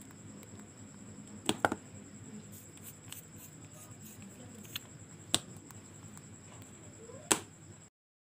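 Sharp little clicks and taps of a pen-style green laser pointer and its metal cap being handled, half a dozen scattered through, the loudest near the end; the sound cuts off suddenly just before the end.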